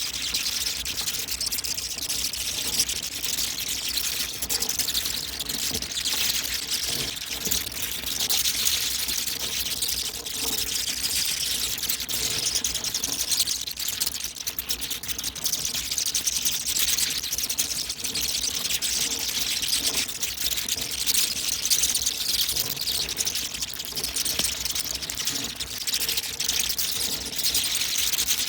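A colony of flying foxes (fruit bats) in trees calling all at once: a dense, unbroken mass of high-pitched squeaks and clicks.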